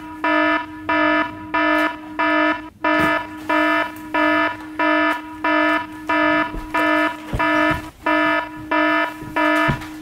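Fire alarm going off: a loud, buzzy electronic beep at one steady pitch, repeating evenly about three times every two seconds.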